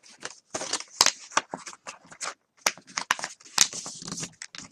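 Paper plate crinkling and crackling as it is bent and folded by hand and the creases are pressed down, in quick, irregular rustles and snaps.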